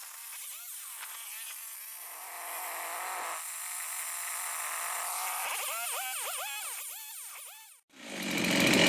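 Husqvarna 372-clone two-stroke chainsaw with a 268 pop-up piston running after a cold start. Its pitch rises and falls in quick revs, steadier in the middle. The saw fired right off after sitting out in the snow. Near the end a brief break is followed by a much louder, steadier run.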